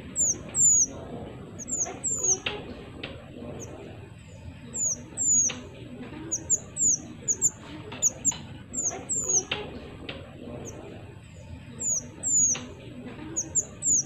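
A caged mantenan songbird calling in quick, irregular runs of short, very high, thin notes that slur downward, broken by sharp clicky notes.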